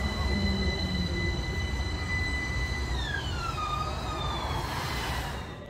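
Modern low-floor tram pulling away, its running gear rumbling under a high-pitched whine that holds one pitch and then slides down about three seconds in, wavering as it falls.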